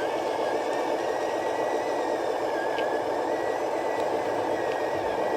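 Remote-control truck's electric drive running, a steady whir with a thin high whine that wavers a little in pitch.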